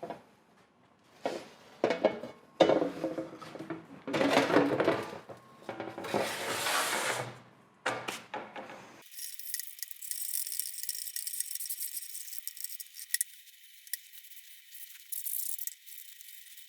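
Workshop handling noises: several knocks, clunks and scrapes of metal saw parts being moved and set down. About halfway through the sound turns thin and tinny, becoming a light high clinking and rattling.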